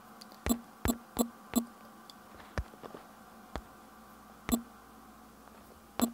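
Fingertips tapping a phone's touchscreen: sharp clicks, four in quick succession in the first second and a half, then single taps about a second apart.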